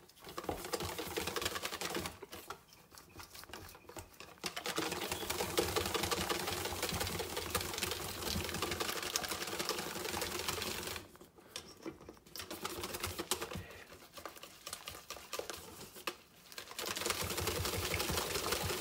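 Wire whisk beating pancake batter by hand in a stainless steel bowl: a fast, steady rattle of the wires clicking against the metal, easing off briefly a few times.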